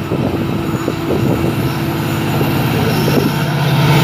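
WDP-4D diesel-electric locomotive running at speed under power with its EMD 710 two-stroke V16 engine as it approaches and passes. A steady low engine drone grows louder, with clatter from the wheels on the track in the first second and a half.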